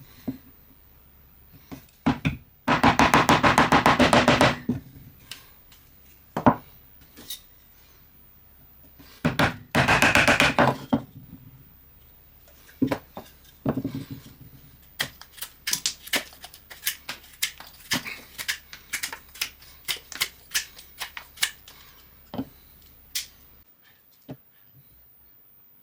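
Blade and 4 mm wood chisel of a Victorinox Swiss Army knife cutting into a wooden spoon blank. There are two short runs of rapid scraping, then a string of sharp separate clicks of cuts into the wood, about two a second.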